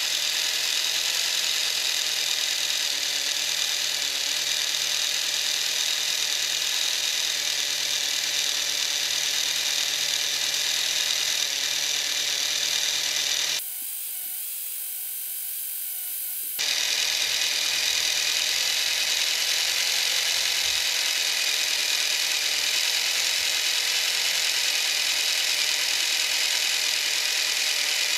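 Small electric motor spinning a 3D-printed plastic gearbox and rear driveshafts: a steady high whir with gear chatter. About halfway through, the sound drops for about three seconds to a quieter, thinner hiss, then the whir returns.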